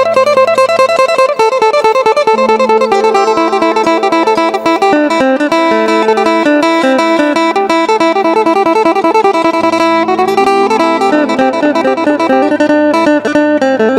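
Isan phin (Thai lute) music: a fast, rhythmic plucked melody over a steady low drone note.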